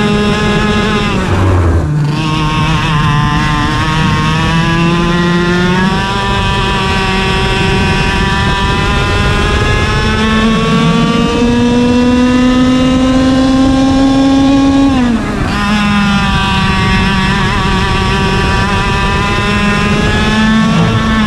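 IAME KA100 100cc single-cylinder two-stroke kart engine at full throttle, its pitch climbing steadily for long stretches as the kart gains speed. It drops sharply about fifteen seconds in as the kart slows for a corner, then climbs again; a shorter dip comes about a second and a half in. With a single fixed gear, the revs follow the kart's speed.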